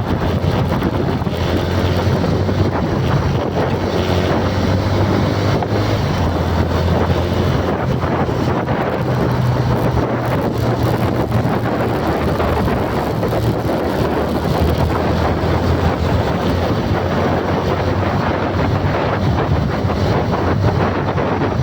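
Steady wind noise on the microphone over a low, steady hum.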